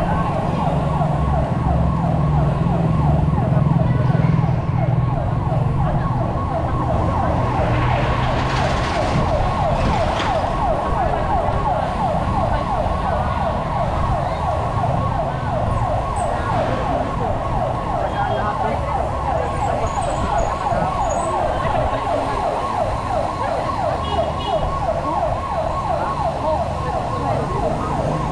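Siren sounding a fast, repeating up-and-down yelp without a break, over a low rumble that is heaviest in the first few seconds.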